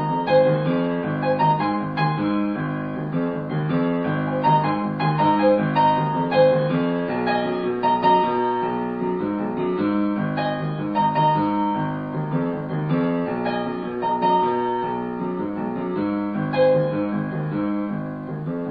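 Background piano music, a gentle melody over sustained chords, which cuts off suddenly at the end.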